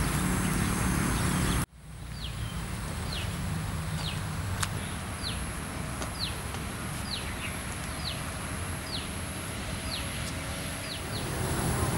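A bird calling over and over in short downward-sliding chirps, about one and a half a second, starting after an abrupt cut about two seconds in. Before the cut there is a steady low outdoor rumble.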